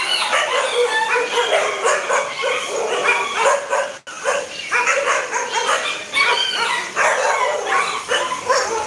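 A pen of puppies yapping and yelping together, many short barks overlapping without a break, cut off for an instant about four seconds in.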